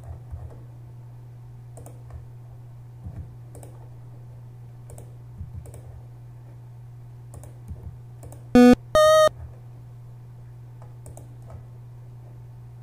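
Computer mouse clicking at an irregular pace over a steady low electrical hum. A little past halfway, two short loud musical tones come from audio played back in the editing software: a lower one, then a slightly longer higher one.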